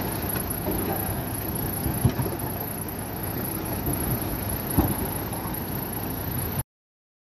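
Diesel engine of earthmoving machinery running steadily, with two short knocks about two and five seconds in and a thin high whine on top; it cuts off suddenly near the end.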